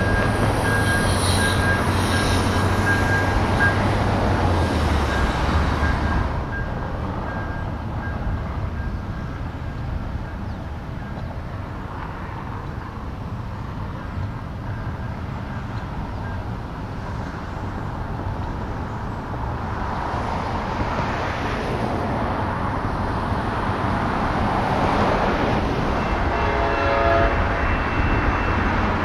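Diesel commuter train passing, its engine rumble and wheel noise loud for the first six seconds, then dying down and swelling again. A train horn sounds briefly near the end.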